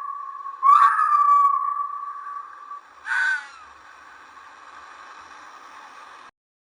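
Wolf howling: a long, steady howl that swells about half a second in and fades, then a short call around three seconds in, followed by fainter howling that cuts off near the end.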